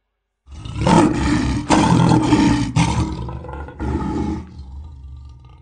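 Lion roar sound effect: a loud, rough roar that starts about half a second in, comes in four surges and then fades out.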